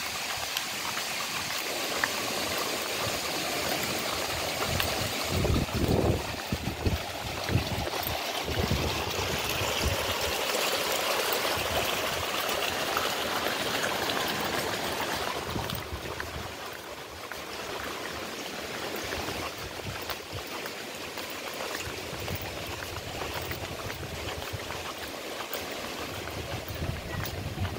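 Water running steadily through the channels and over the ledges of a milky-white sulphur hot-spring pool, with a few low thumps about five to seven seconds in. The running water gets a little quieter after about sixteen seconds.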